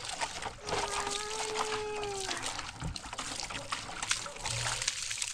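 Water pouring out of a tipped metal basin, splashing and trickling onto stony ground. About a second in, a high voice holds one long, slightly falling note.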